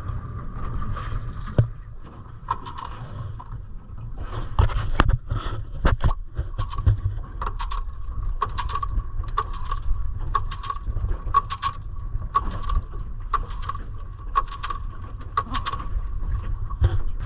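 Small outboard motor being cranked over again and again without catching, a rhythmic clatter about three times a second. It is struggling to start because it is short of fuel, through a split in the fuel line.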